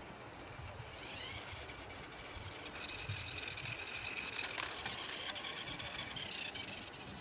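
Raspberry Pi Cat wheeled robot's drive motors whining as it runs over brick paving, the whine gliding up in pitch about a second in and then holding steady. A single sharp click sounds near the middle.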